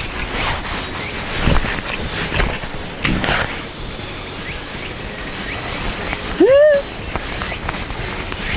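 Steady high-pitched buzzing of an insect chorus, with a few faint clicks and one short rising-and-falling call about six and a half seconds in.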